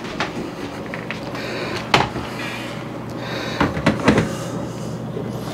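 Plastic clunks and knocks from the dust compartment and filters of a bagless vacuum cleaner being handled and knocked, shaking dust loose. The loudest knock comes about two seconds in, with a cluster of knocks near four seconds.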